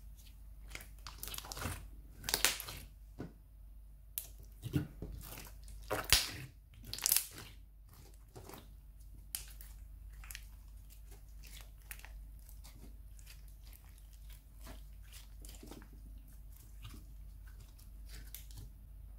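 Thick glossy slime being squeezed, stretched and folded by hand, giving irregular wet clicks and pops as air pockets burst. The pops are loudest and densest in the first half, then thin out to softer scattered clicks.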